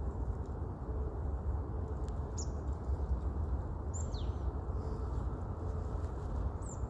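Tits giving three short, thin, high calls that drop in pitch, spaced a second or more apart, over a steady low background rumble.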